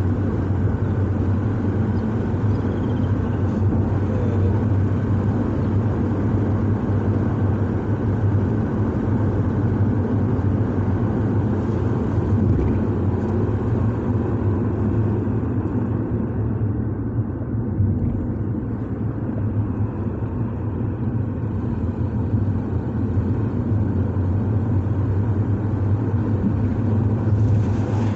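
A car driving along a road: steady engine rumble and tyre and road noise that holds even throughout.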